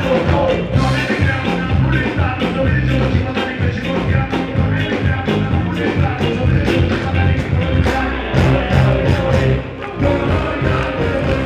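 Live band music played over a stage PA: electric guitar, a fast steady drumbeat and vocals into a microphone.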